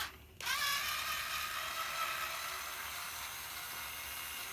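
A small electric motor spins up about half a second in and then whirs steadily, its pitch settling slightly lower as it runs.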